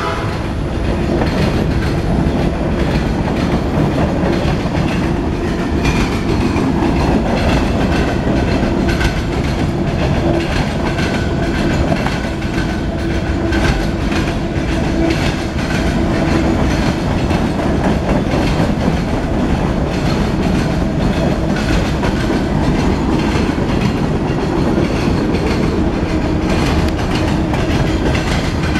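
Norfolk Southern mixed freight train's covered hoppers and boxcars rolling past close by, a steady loud rolling noise with the wheels clicking over the rail joints.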